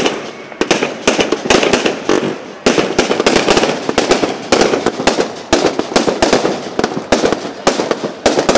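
Fireworks display going off in rapid, dense succession: many sharp bangs a second, each trailing into crackle.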